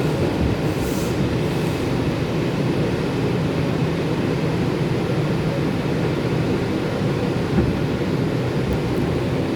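R142 subway car running on the track, a steady low rumble heard from inside the car, with a short hiss about a second in.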